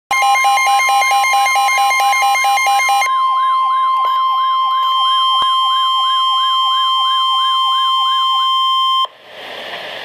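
Midland weather radio sounding its warning alarm for a Special Marine Warning. A steady high tone runs under a rising siren-like sweep that repeats about two to three times a second, with rapid beeping over it for the first three seconds. The alarm cuts off sharply about nine seconds in, leaving radio hiss.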